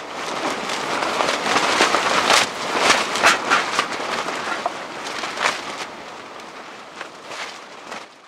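Strong night wind gusting against a tent, the fabric flapping and snapping in a run of sharp cracks over a rushing noise. The gusts are loudest in the first few seconds and ease off toward the end.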